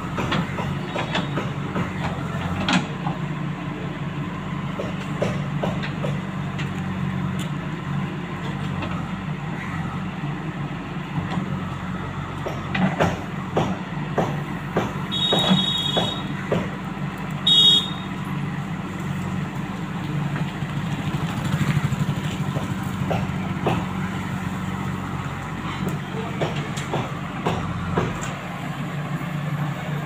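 JCB backhoe loader's diesel engine running steadily under load while its backhoe bucket digs soil, with scattered knocks and clanks from the working bucket. Two short high-pitched beeps come about halfway through.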